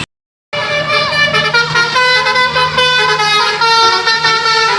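A tourist bus's telolet basuri musical horn playing a quick tune, its notes changing every fraction of a second, with the bus engine running underneath. It starts about half a second in and stays loud throughout.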